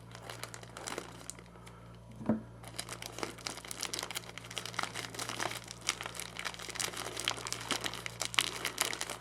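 Packaging crinkling and rustling as a delivered package is opened by hand, a dense run of small crackles that starts after a single knock about two seconds in. A steady low hum runs underneath.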